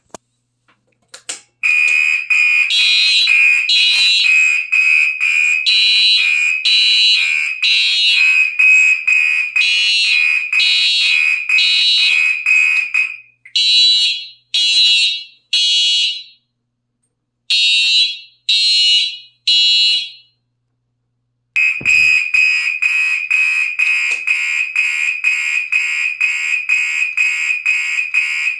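Fire alarm horns sounding in rapid even pulses, about two a second, with a second, higher-pitched horn pulsing alongside. About halfway through, the first horn stops and the higher one sounds alone in groups of three blasts with pauses between: the temporal-three evacuation pattern. The rapid pulsing returns about three quarters of the way through.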